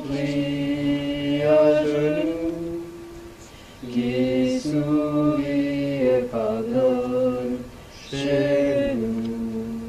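Devotional mantra chanting: sung phrases of about two seconds each on long held notes, with brief breaks between them.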